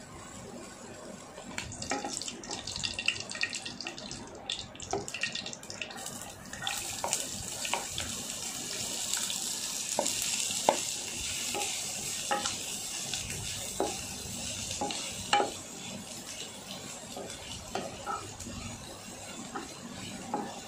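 Food sizzling in hot oil in a pan while a spatula clicks and scrapes against the pan as it is stirred. The sizzle gets louder about six seconds in.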